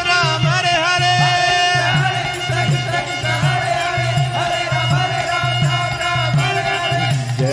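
Kirtan music: voices singing a devotional chant over harmonium chords and a steady mridanga drum beat, about two to three strokes a second.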